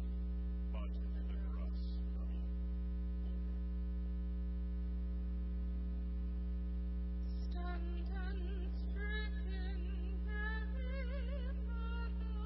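Steady electrical mains hum throughout. About seven and a half seconds in, a woman begins singing a slow hymn verse with a wavering vibrato.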